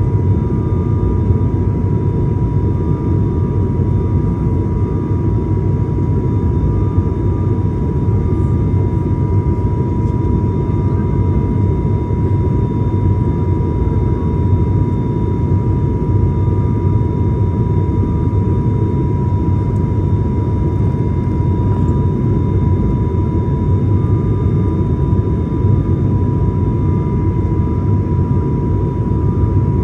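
Aircraft engine noise heard inside the passenger cabin in flight: a steady, loud drone with a constant high tone running over it.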